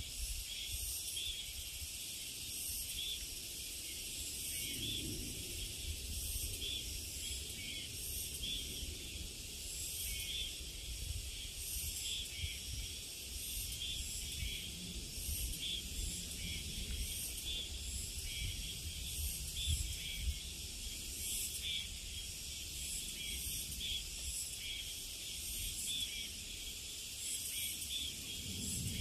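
Steady, high-pitched chorus of summer insects, swelling in a repeated pulse about every one to two seconds, over a faint low rumble.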